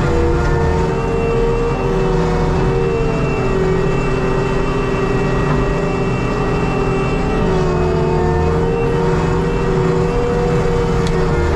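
ASV RT120 compact track loader's diesel engine running hard with its Fecon forestry mulcher head spinning: a steady heavy drone with a whine that wavers slightly in pitch.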